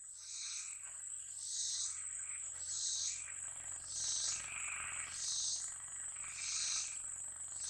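Insects calling at dusk: a steady high-pitched buzz, with a louder pulsing call repeating about once a second.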